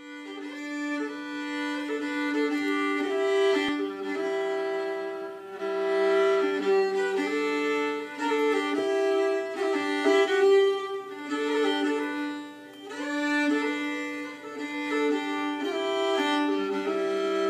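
Solo fiddle played on a four-string carbon-fibre violin, a Gayford Carbon Strad prototype: long bowed notes of a tune, with low notes held underneath in places.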